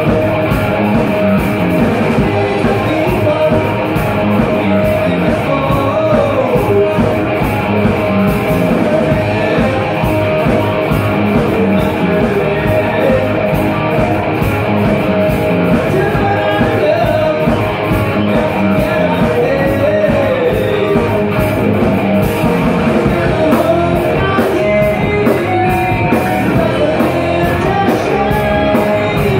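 Live rock band playing: electric guitar through a Randall amplifier, bass guitar and a drum kit, with a man singing over them.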